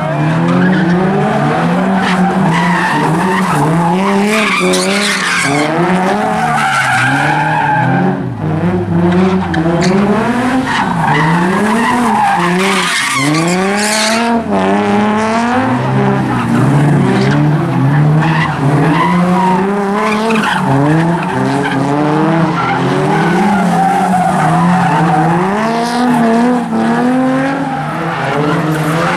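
A Nissan 350Z and a Toyota 86-type coupe doing donuts: their engines rev up and down over and over while the spinning tyres screech, loud throughout.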